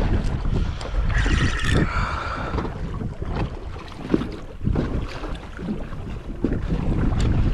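Wind buffeting the microphone over water slapping against a small boat's hull, with scattered knocks. A brief higher-pitched sound comes about a second in.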